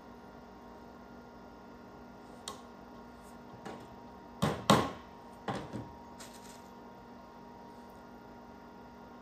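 Hammer tapping small nails into a board to tack down a squirrel tail. A couple of light taps come first, then two sharper strikes in quick succession about halfway through, then a few lighter taps.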